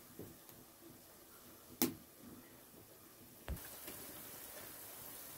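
Quiet cooking and handling sounds: a sharp click a little under two seconds in, then a low thump about three and a half seconds in, after which a faint steady hiss sets in.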